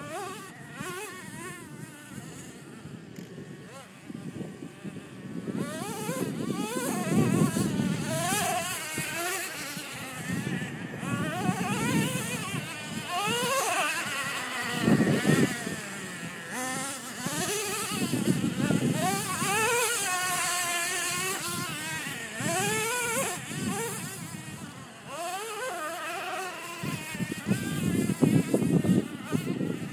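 Radio-controlled truck's motor whining, its pitch rising and falling again and again as the truck speeds up and slows down.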